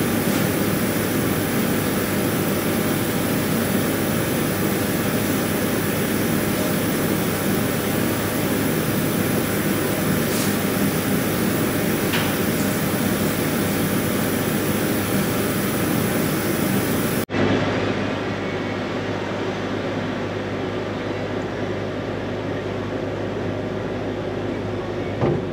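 Steady roar of running machinery, even and unbroken, with a couple of faint ticks in the middle. About two-thirds of the way in it cuts abruptly to a slightly quieter, duller steady hum.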